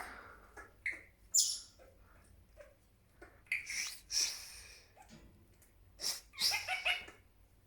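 Pet Senegal parrot making a run of short squawks and noises, several separate bursts with quiet gaps between them.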